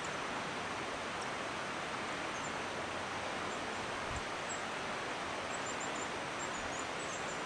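Steady, even rushing noise of an outdoor woodland ambience, with a few faint high chirps scattered through it.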